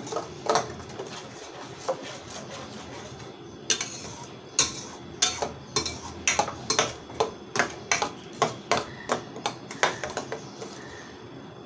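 A spatula stirring ground onion paste frying in hot oil in a stainless steel kadai: a steady sizzle with quick knocks and scrapes against the pan, sparse at first, then about three a second from about four seconds in. The paste is being fried (koshano) with whole spices until golden brown.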